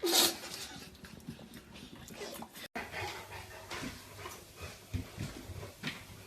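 A dog making short vocal sounds, the loudest right at the start, then softer scattered ones.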